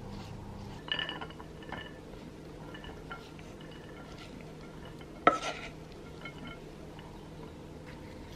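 Kitchenware clinking as cooked rice is scraped out of a metal saucepan into a ceramic bowl. There is a ringing clink about a second in and a sharper, louder knock about five seconds in, with a few faint taps between, over a low steady hum.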